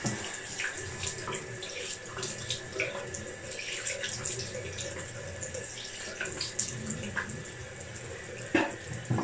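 Bathroom sink tap running while water is splashed onto a face with the hands, making many small splashes throughout. There is a louder splash about eight and a half seconds in.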